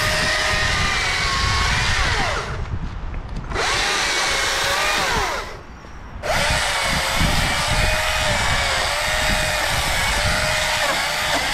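STIHL MSA 220 C battery chainsaw running at full speed with a steady electric whine. Twice it winds down briefly, about two and a half seconds in and again around five and a half seconds, then speeds back up.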